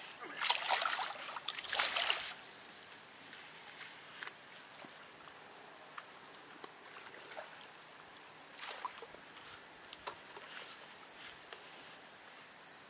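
Water splashing in a few short bursts in the first two seconds, then a faint steady trickle of water with scattered light clicks.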